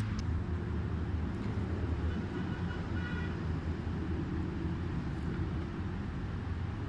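Steady low outdoor background rumble, with a brief faint high-pitched sound about three seconds in.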